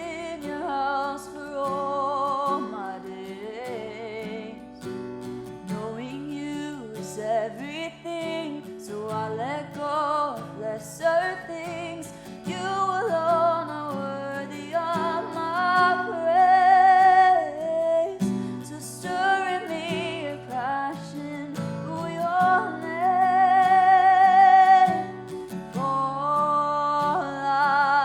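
Worship song: a singer with acoustic guitar accompaniment, holding long notes twice in the passage.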